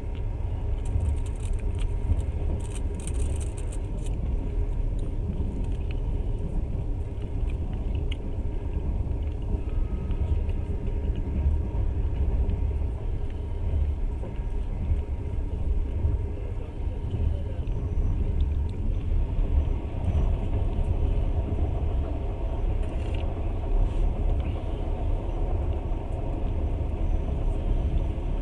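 Passenger train running at speed: a steady low rumble of the carriage and its wheels on the rails, heard at the carriage window.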